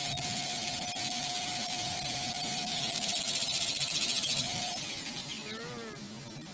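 Battery-powered hydraulic crimping tool's electric motor and pump running steadily with a constant whine, pumping its ram, then stopping about five seconds in.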